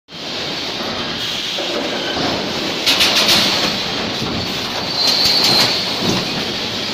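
EPS 3D wire-mesh panel welding machine running: a steady machine noise with rapid metallic clattering about three seconds in and again near five seconds, the second burst joined by a high whine.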